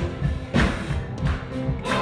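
Live gospel church band playing without singing: drum kit strikes, loudest a little after half a second in, near the middle and near the end, over held bass and sustained instrumental notes.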